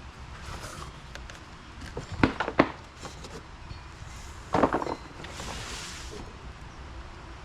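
Knocks and clatter from a metal workbench and its packaging being handled during unboxing: sharp knocks about two seconds in, again half a second later, and about four and a half seconds in, then a soft rustle about five to six seconds in.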